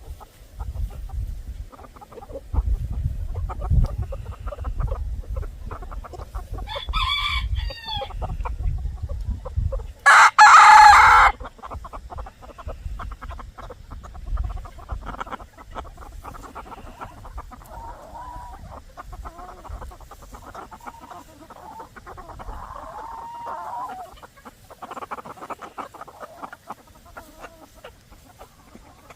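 A rooster crows loudly once about ten seconds in, after a shorter call near seven seconds, while chickens cluck softly on and off. A low rumble runs under the first ten seconds.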